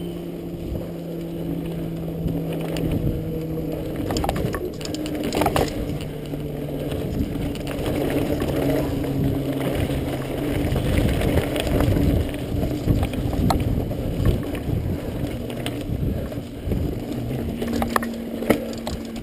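Mountain bike ridden down a dirt singletrack: tyres rumbling over the dirt, with several sharp knocks and rattles as it hits bumps. A steady buzzing tone runs under it, sliding slowly lower in pitch through the first half.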